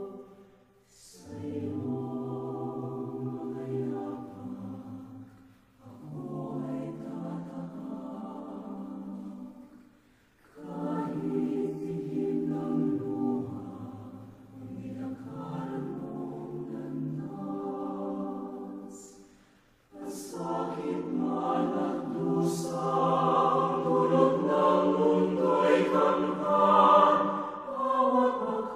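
A choir singing slow, sustained phrases with short pauses between them, growing louder for the last phrase.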